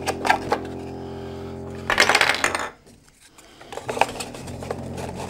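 Plastic travel plug adapters and a cardboard box being handled: a few light clicks and clatters, with a louder scraping rustle about two seconds in. A steady low hum runs underneath and cuts out briefly just after the scrape.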